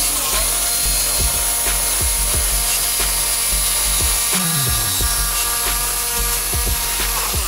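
Electronic music with a heavy bass beat of about three strokes a second and a falling bass sweep a little past halfway, over a Black+Decker jigsaw buzzing as it cuts through plywood.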